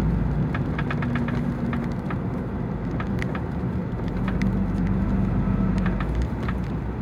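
Truck's diesel engine running steadily while driving, heard inside the cab, with road noise and scattered light clicks.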